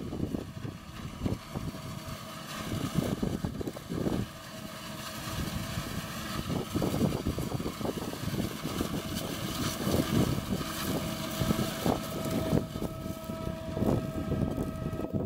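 John Deere 8600i self-propelled forage harvester running under load while chopping maize, a continuous machine drone with a steady high whine, mixed with the JCB Fastrac tractor hauling the trailer alongside. Gusts of wind buffet the microphone throughout.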